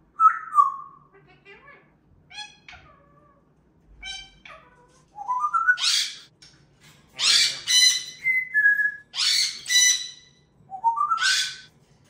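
Pet parrots whistling and chirping in short gliding notes, then from about five seconds in a string of loud, harsh, rising screeches, with one held whistle between them.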